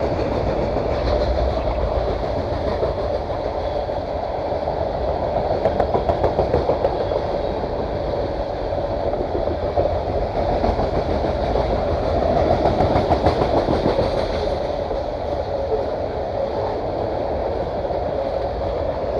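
Passing train: a steady, continuous rumble of rail cars rolling by, swelling slightly a few times.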